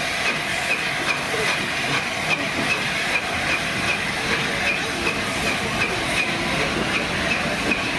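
Steam locomotive pulling a train away beneath, with a steady hiss of steam and a regular beat of about three pulses a second as the coaches roll past.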